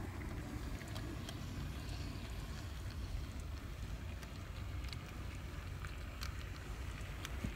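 Brass HOn3-scale model of a D&RGW K-37 steam locomotive running along the track: a steady low rumble of its motor, gearing and wheels, with scattered light clicks.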